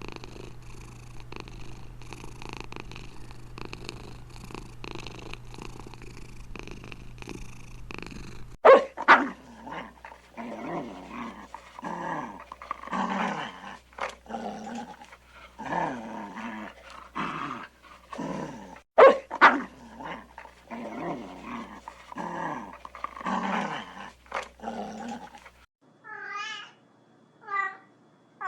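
Pet animal sounds in three parts. First a steady rhythmic rumble, then a long run of repeated falling cries broken by two sharp knocks, then a few high wavering meows near the end.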